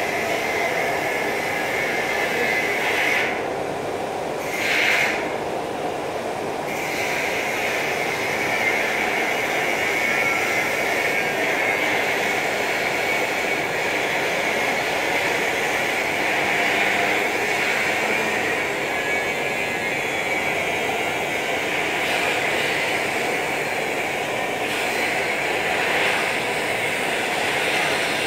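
TIG welding arc on 6-inch stainless steel pipe, with the cup walked along the joint: a steady hiss that thins out twice, briefly, a few seconds in.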